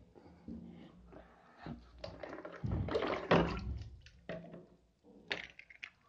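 Irregular muffled knocks and rustling of something being handled, loudest about halfway through.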